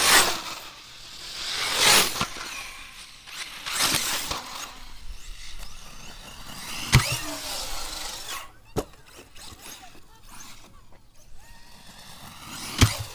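Tekno MT410 electric RC monster truck running: its brushless motor whines in swells as it accelerates and backs off, three times in the first five seconds, then fainter as the truck drives off. A few sharp knocks come later, about seven and nine seconds in and near the end.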